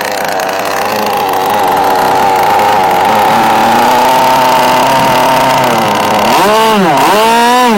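An engine running steadily, then revved up and back down twice in quick succession near the end.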